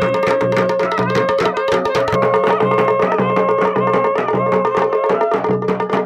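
Garhwali jagar music: dhol and damau drums beating a fast, dense rhythm under long held notes from a ransingha, the curved brass horn, which shift between a few pitches.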